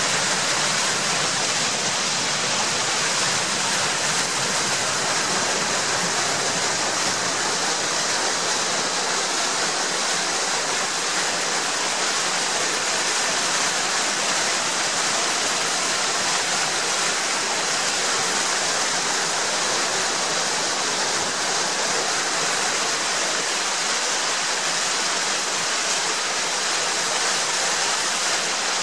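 Muddy storm runoff from a heavy downpour gushing out of a roadside culvert pipe and splashing into the flooded ditch and road. It makes a steady, loud rush of water that does not change.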